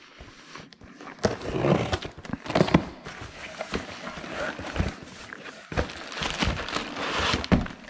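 A cardboard box being cut open with a knife, its flaps pulled open and the plastic bubble wrap inside handled: irregular crinkling and scraping with light knocks.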